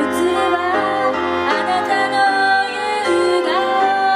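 Live ballad performance: a woman singing into a microphone, accompanied by violin and a Casio Privia digital piano over a low bass line.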